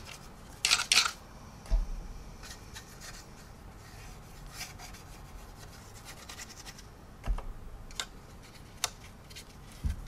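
Paintbrush scrubbing a thin, watery clay wash onto the plastic surface of a scale model helicopter, in short scratchy strokes that are loudest about a second in, with a few low knocks from the model being handled.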